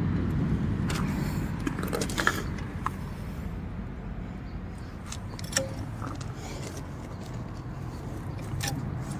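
A few light, irregular metallic clicks and clinks from a 2-ton floor jack being worked under a car, over a low steady rumble.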